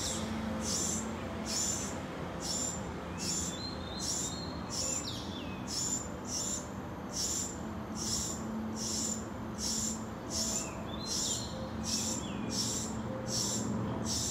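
Rainforest wildlife calling after rain: a high call pulses evenly about one and a half times a second throughout, with a few short bird chirps now and then, over a low, steady city rumble.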